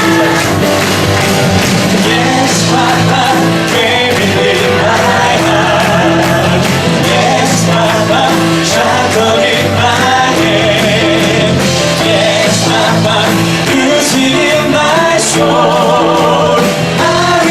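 Live music: voices singing held notes with vibrato over an instrumental accompaniment with steady bass notes.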